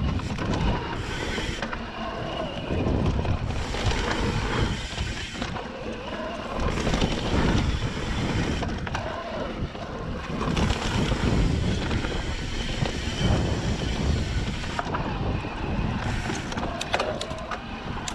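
Wind buffeting a mountain bike's handlebar camera microphone while riding down dirt singletrack, with tyre noise on the dirt and the bike rattling over bumps.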